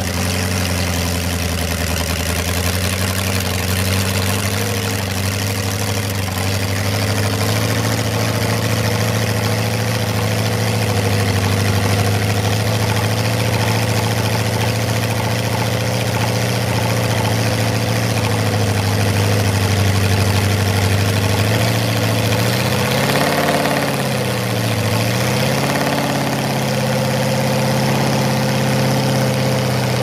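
Porsche 804's air-cooled 1.5-litre flat-eight racing engine idling steadily as the throttle linkage on its carburettors is worked by hand. About three-quarters through, the revs waver, rising and then dipping briefly, before settling back to a steady idle.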